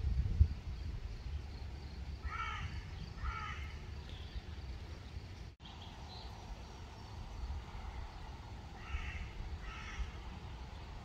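A bird calling: two short calls about a second apart, then two more near the end, over a low wind rumble on the microphone.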